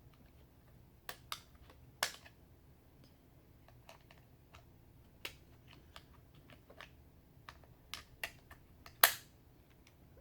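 Scattered sharp clicks and taps of small phone-repair tools, such as plastic pry tools, being handled and set down, with a louder clack about nine seconds in.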